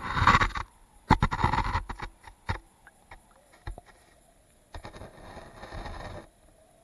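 Stream water sloshing and splashing over a camera held at the surface of a shallow riffle, in two loud bursts over the first two seconds. Then scattered clicks and a spell of muffled rushing water as the camera sits underwater.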